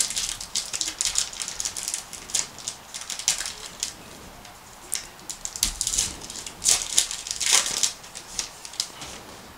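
A trading-card pack wrapper crinkling and tearing as it is ripped open and the card stack is slid out, a run of irregular crackles with the loudest toward the end.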